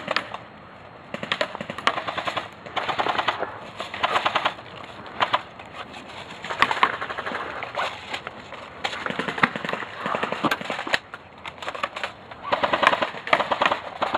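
Airsoft guns firing on full auto in short bursts: rapid mechanical rattling volleys of BB shots, several of them one after another, with the longest and densest near the end.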